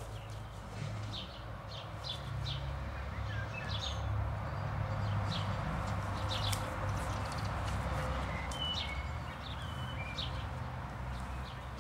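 Small birds chirping and singing repeatedly, short high calls scattered throughout, over a steady low rumble and a soft hiss.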